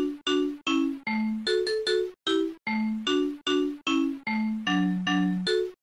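A bright tune in a xylophone-like tone, played as short, separate notes at about three a second.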